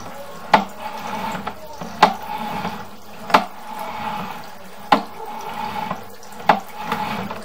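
Bathroom sink faucet running at full flow, a steady rush of water, with sharp clicks about every one and a half seconds.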